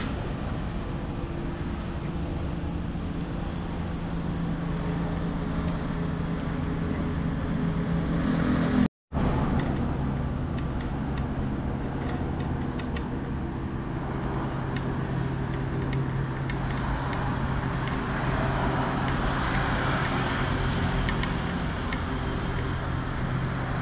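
Steady city traffic noise with a low engine drone underneath, cut by a brief drop to silence about nine seconds in, and a passing vehicle swelling a little near the end.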